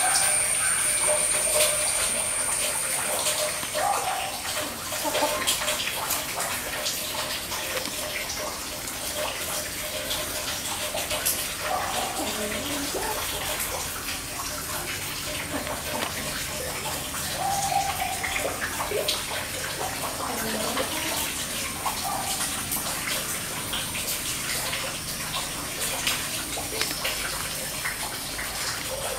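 Steady rushing of running water, with a few short, faint sounds over it now and then.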